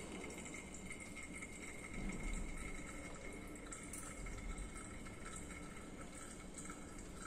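Faint trickle of oil draining from a Redwood viscometer's orifice into the collecting cylinder below, with a couple of soft low bumps.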